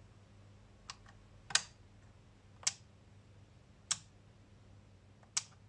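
Five short, sharp clicks about a second apart as a front-panel knob of a lab power supply is turned, over a faint steady low hum.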